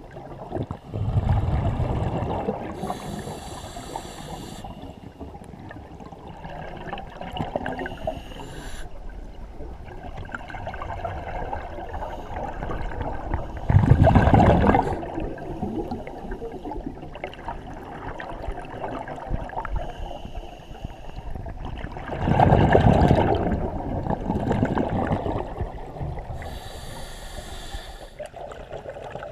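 A scuba diver breathing through a regulator underwater: three loud gurgling rushes of exhaled bubbles, about a second in, near the middle and about three-quarters through, with fainter hissing inhales between them.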